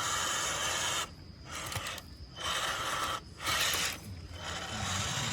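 Radio-controlled off-road truck's electric motor and geared drivetrain running in short stop-start bursts with a rasping, grinding whir. The bursts are separated by brief pauses, and a longer one starts near the end.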